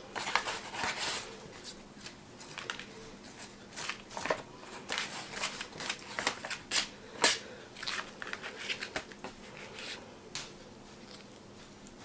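Hands peeling and seeding a roasted red bell pepper on a brown paper bag: faint, irregular rustles and crinkles of the paper with small ticks and taps as the pieces are pulled apart and moved.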